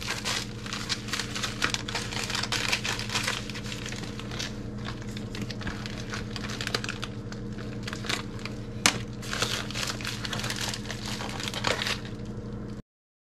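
A white plastic mailer bag crinkling and rustling as it is handled and slit open with a pocket knife, with one sharp click about nine seconds in. A steady low hum runs underneath, and the sound cuts off suddenly just before the end.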